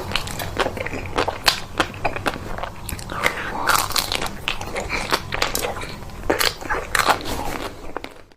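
Close-miked biting and chewing of ice cream: a dense run of sharp, irregular crunching clicks and wet mouth sounds, cutting off suddenly at the very end.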